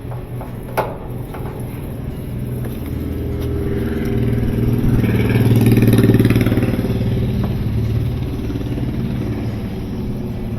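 Repaired Estate washing machine's motor running with a low hum that swells louder about halfway through, then eases; a sharp click comes under a second in.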